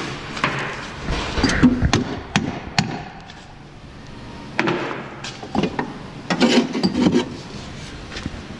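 Driveshaft being worked free and handled: a series of sharp metal knocks and clanks in two bunches, the first about half a second in and the second past the middle, with quieter rubbing and shuffling between.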